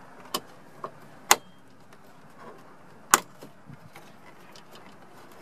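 Sharp plastic clicks and snaps as a plastic pry tool works a dash trim piece and its retaining clips pop loose, a handful of separate clicks with the loudest about a second in and another near three seconds.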